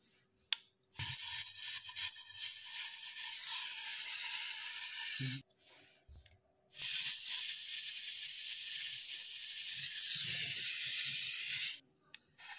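Brazing torch flame hissing steadily in two long stretches of about four to five seconds, with a short break near the middle, while copper refrigeration pipe joints are heated. A sharp click about half a second in.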